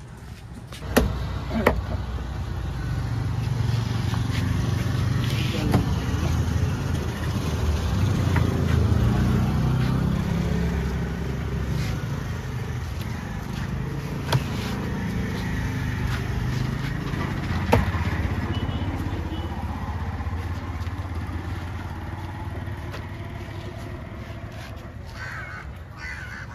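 A motor vehicle's engine rumbling close by, swelling over the first several seconds and then slowly fading. A few sharp knocks sound over it.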